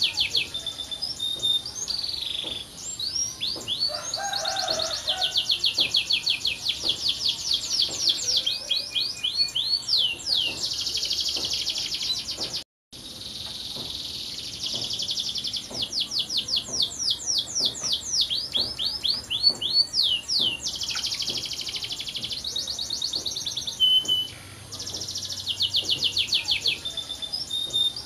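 Canary singing a long, continuous song of fast trills and rapid runs of repeated sweeping notes. All sound cuts out for a fraction of a second about halfway through.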